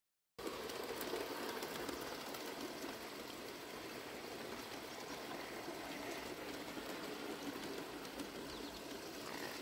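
A small garden-pond waterfall trickling steadily, with faint birdsong.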